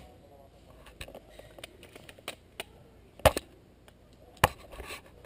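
Scattered sharp clicks and knocks, the loudest a double knock about three seconds in, with others at the start and near the end.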